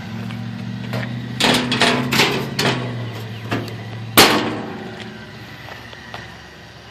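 Stainless-steel door panels of a corn roaster clanking and knocking as they are handled, then one loud metal bang about four seconds in. Under it runs a low hum from the roaster's small motor, which fades after the bang.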